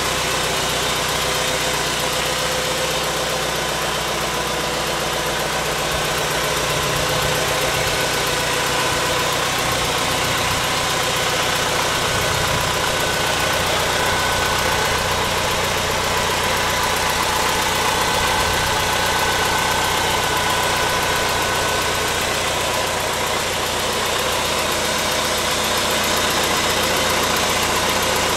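Farmall 100 tractor's four-cylinder gasoline engine idling steadily.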